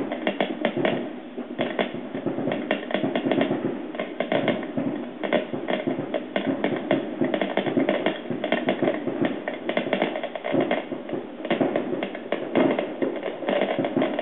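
Fireworks bursting in a dense, uneven barrage of pops and crackles, heard through a television's speaker.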